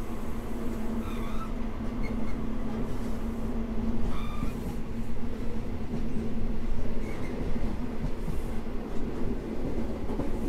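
HST (InterCity 125) train running along the line: a steady low drone over continuous track rumble, with a couple of faint short wheel squeals about a second in and about four seconds in.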